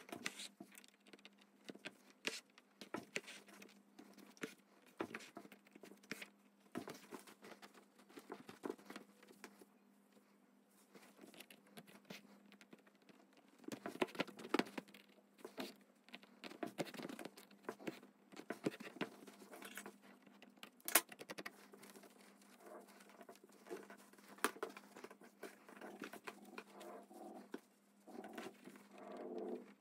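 Hands handling sequined, beaded tulle and fabric on a wooden embroidery hoop: soft rustling and crinkling with scattered light taps and clicks, over a faint steady hum.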